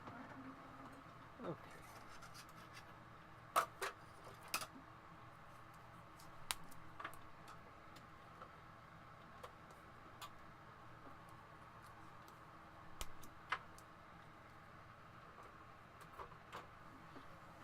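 Scattered small clicks and light clatter of electronic parts, wires and tools being handled on a workbench, over a faint steady hum. The sharpest clicks come in a cluster about three to four seconds in and again once near thirteen seconds.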